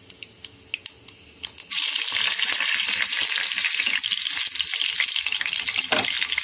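A few sharp clicks, then about two seconds in a sudden loud, steady sizzling as mustard seeds and urad dal fry in hot oil in a pan for tempering.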